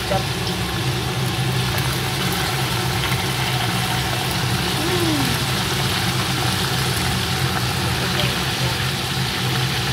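Fish cooking in a pan of hot oil and water, bubbling and sizzling steadily, over a steady low hum.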